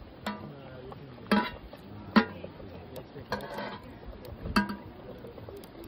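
A metal spoon knocking and scraping against a cooking pot while stirring and checking rice: about five clinks, each with a short ring, the loudest about two seconds in.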